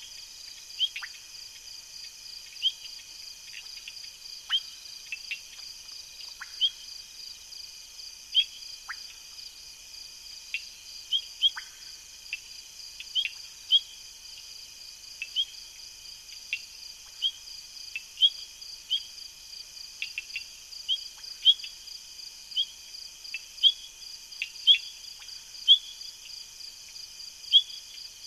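Steady high-pitched chorus of night insects, with short sharp chirps about once or twice a second standing out as the loudest sounds.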